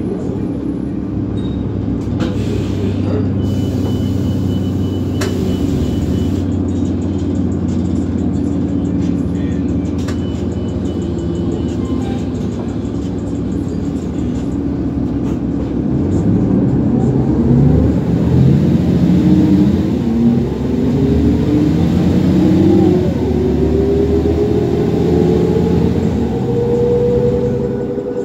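A 2004 New Flyer D40LF transit bus's Cummins ISL diesel, heard from inside the cabin, idling steadily while stopped. About halfway through it revs up as the bus pulls away, its pitch rising steadily and growing louder.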